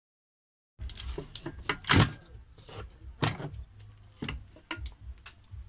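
Clatter of a disassembled electric jigsaw being handled: irregular knocks and clinks of its metal and plastic housings and parts against each other and the workbench, starting a little under a second in and loudest about two seconds in, over a low steady hum.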